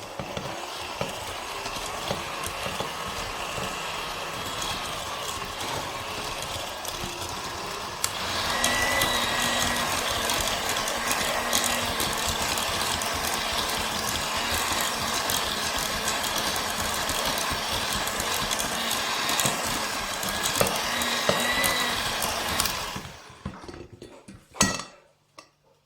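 Electric hand mixer beating butter and sugar together. It runs steadily, then gets louder and higher-pitched about eight seconds in as the speed goes up, and switches off near the end.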